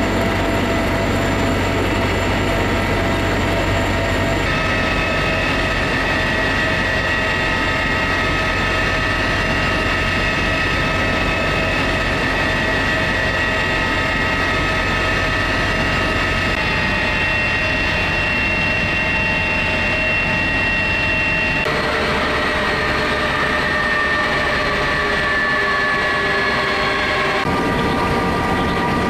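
CH-53 heavy-lift helicopter running: a loud, steady rumble under several high, steady whines from the turbines and gearbox, heard from inside the cabin and from beneath the aircraft. The whines shift pitch at a few abrupt changes, and one slides slowly downward for several seconds in the last third.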